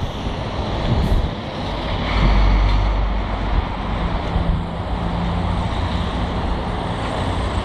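Diesel engine of a long-reach demolition excavator running under load, with a steady low hum from about four seconds in. Wind rumbles on the microphone throughout.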